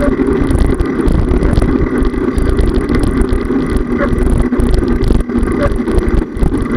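Steady rumble of wind buffeting a handlebar-mounted camera's microphone on a moving bicycle, mixed with the tyres rolling on the asphalt path.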